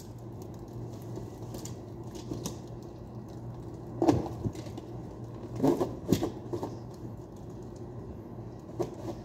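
Yellow plastic strapping band being handled and pulled around a cardboard cargo box: scattered clicks and rustles, a few sharper knocks about four seconds in and twice around six seconds, over a steady low hum.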